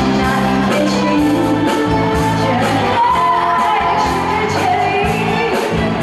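A woman singing a pop song into a handheld microphone, accompanied by a live band.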